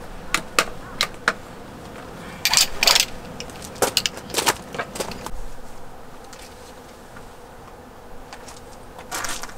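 Camping gear being handled: a quick run of sharp clicks and knocks, then louder rustling and scraping twice in the first half, another burst near the end, and a faint steady hum underneath.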